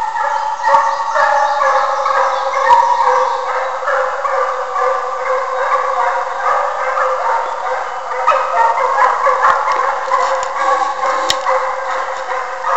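Two Russian hounds baying in full cry as they run a hare's trail, their long pitched voices overlapping without a break.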